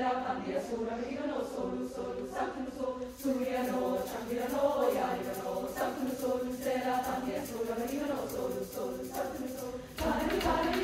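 Mixed high school choir singing in parts, with moving, bending melodic lines over a sustained low drone note. About ten seconds in, the sound suddenly fills out as drums and percussion come in.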